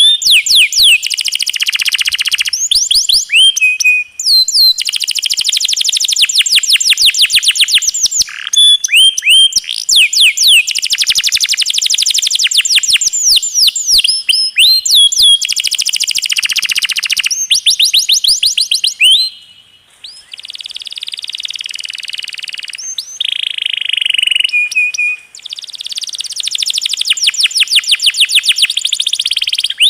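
Domestic canary singing long, fast rolls: trains of rapid, high, downward-sweeping notes repeated many times a second, changing phrase every few seconds. The song drops away briefly about twenty seconds in before the rolls resume.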